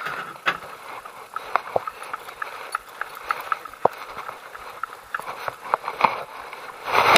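Scattered light clicks and knocks, a few a second, as a small boat is pushed by hand over a brick-paved path.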